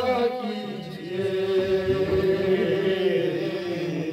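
A man singing a manqabat, an Urdu devotional poem in praise of Ali, drawing out the words in long held notes that waver slowly in pitch, with a brief break about a second in before the next long note.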